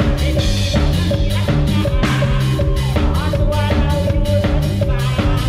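Live band music driven by an acoustic drum kit playing a steady beat, with the rest of the band over it.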